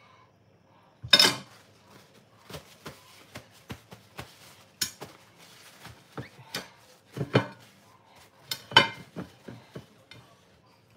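Kitchen knife cutting a tomato on a ceramic plate: a run of irregular clicks and knocks as the blade meets the plate, with two sharper clunks about a second in and near nine seconds.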